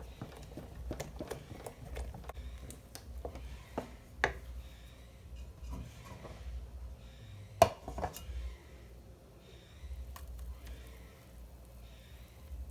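Kitchen utensil knocking and scraping in a mixing bowl: a quick run of taps in the first few seconds, then scattered clinks with one sharp clink a little past halfway.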